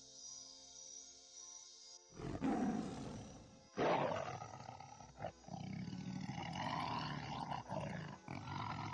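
Lion roaring: a loud roar begins about two seconds in and a second one follows about a second and a half later, then a long, rough, rumbling growl. Soft background music plays before the roars start.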